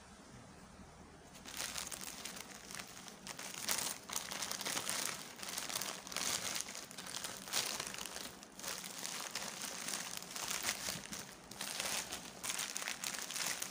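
Plastic courier bag and bubble wrap crinkling and rustling as they are pulled apart by hand, starting about a second and a half in and going on in quick irregular crackles.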